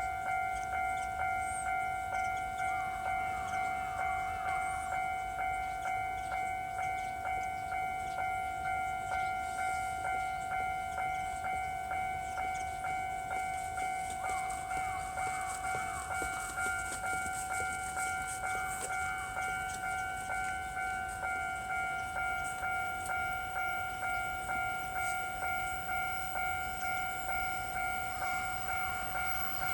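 Japanese railway level-crossing warning bell ringing steadily, its electronic tone repeating at an even, regular beat to signal an approaching train.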